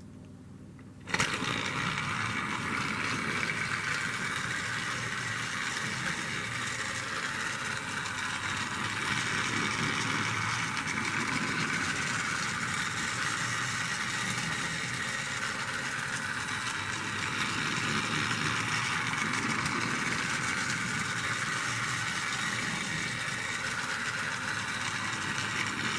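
Battery-powered TrackMaster Thomas toy train's small electric motor and gears whirring steadily as it runs, switched on about a second in.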